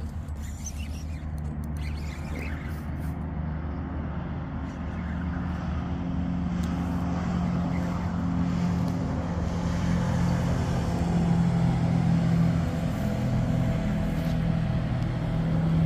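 Motorboat engine droning with a steady low hum, growing louder from about five seconds in as the boat draws nearer.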